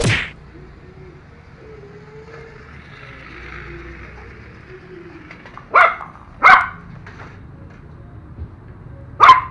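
A poodle barking: four short, sharp barks, one at the start, two in quick succession a little before the middle, and one near the end.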